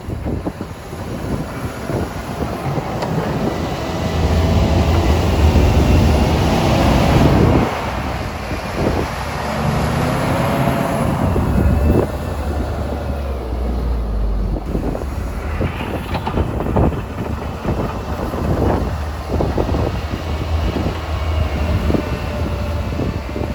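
Heavy diesel snow-removal machinery running close by, its engine note swelling for a few seconds near the start and then easing, with frequent knocks and clatter.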